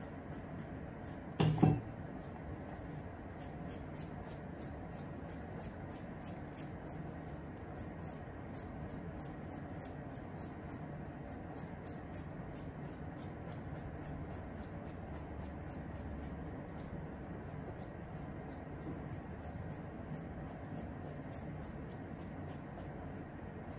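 One thump about a second and a half in as the suede shoe is set down on the plastic-covered table. After that, only faint rubbing of fingers on the suede over steady low room noise.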